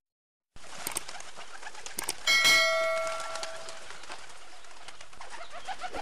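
Subscribe-button sound effect: a couple of clicks, then a bell ding about two seconds in that rings out for about a second and a half. Under it, a hissy background of pigeons cooing starts suddenly about half a second in.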